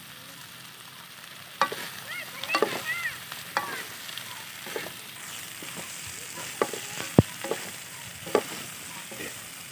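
Wooden spatula stirring and scraping chicken wings and vegetables in a metal wok, with clacks against the pan from about a second and a half in and one sharp knock past the middle. A low, steady sizzle of frying runs underneath.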